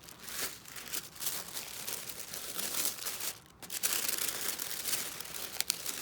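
Packaging being unwrapped by hand: a continuous crinkling and rustling, with a brief pause about three and a half seconds in.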